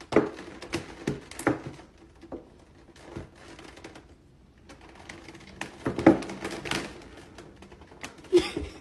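Thin clear plastic cupcake container crackling and clicking irregularly under a cat's paws as it steps and shifts its weight on it, with a few sharper clacks, the loudest just after the start, around six seconds in and near the end.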